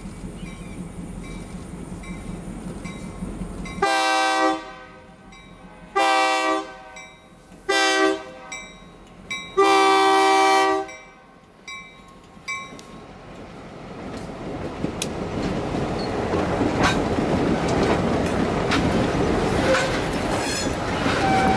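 A Nathan K3LA multi-chime horn on an EMD GP38-2 locomotive blows the grade-crossing signal: two long blasts, a short one and a final longer one. The locomotive then draws near and passes with a rising engine rumble, and its wheels click over the rail joints.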